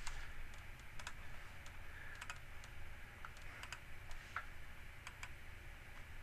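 Faint, irregular clicking of a computer keyboard and mouse, a dozen or so scattered clicks, some in quick pairs, over a low steady hum.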